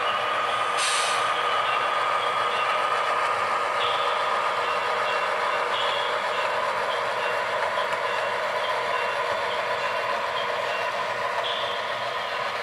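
HO-scale model diesel locomotives running, their engine sound played through a small onboard speaker: a steady, thin-sounding drone with a held tone, a short hiss about a second in and a few brief higher chirps.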